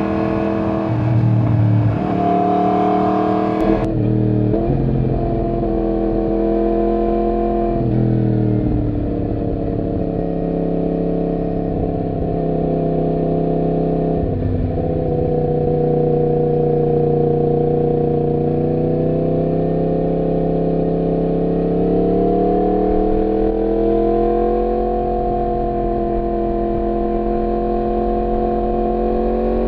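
Yamaha MT-10's crossplane inline-four engine running under way, its pitch dipping briefly twice and rising again as the throttle opens later on.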